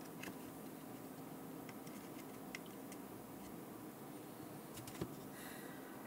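Quiet room tone with a faint steady hum and a few soft, scattered clicks from fingers handling the speaker wires and small parts on the circuit board.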